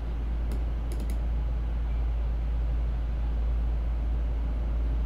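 Steady low hum, with a few faint computer-mouse clicks: one about half a second in and three in quick succession about a second in.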